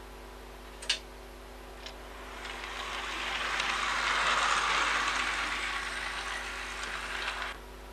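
HO-gauge Union Pacific SD40-2 model diesel locomotive running along the track, its electric motor and wheels whirring louder as it passes close by, then fading and cutting off suddenly near the end. A sharp click about a second in.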